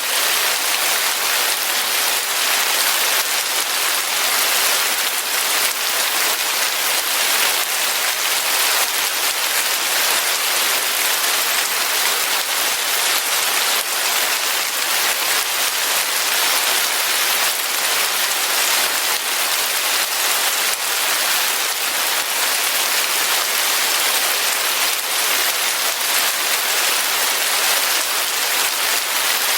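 Steady rain falling on a surface, a dense even hiss of drops without any change in intensity.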